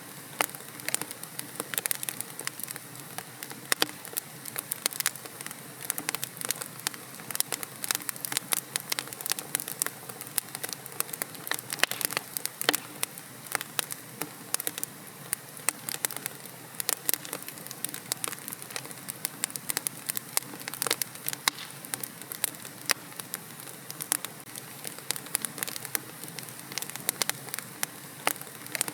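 Wood fire burning in a fireplace, with dense, irregular crackles and pops over a steady hiss.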